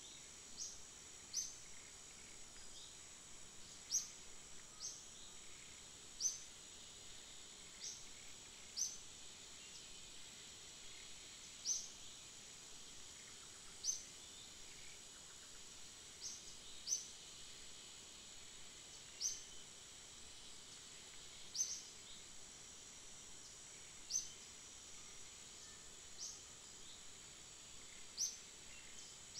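Steady high-pitched drone of forest insects, with a bird repeating a short, high chirp every one to three seconds.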